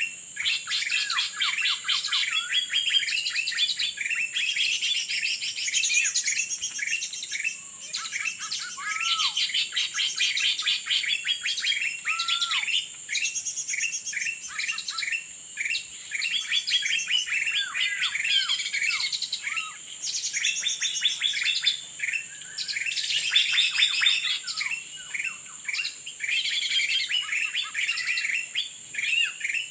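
Birds chirping and calling in rapid, overlapping bursts, many short notes with a few down-slurred calls, over a steady high-pitched whine.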